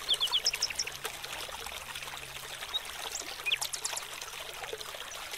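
Shallow river water trickling and rushing over rocks, a steady noise with a few short high chirps over it near the start and again past the middle.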